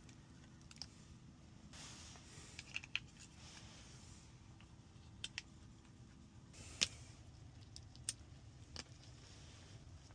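Faint, scattered clicks and taps of small repair tools and phone parts being handled during a phone teardown, with a brief rustle about two seconds in and the sharpest click about two-thirds of the way through.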